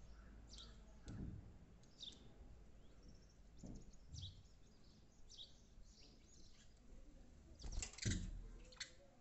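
Sparrows chirping: short high chirps about once a second, with a few dull thumps, the loudest about eight seconds in.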